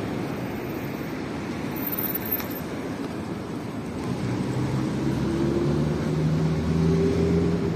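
Road traffic: a steady rush of cars passing on a city road. From about halfway in, one vehicle's engine drone grows louder and rises slightly in pitch, loudest near the end as it passes close.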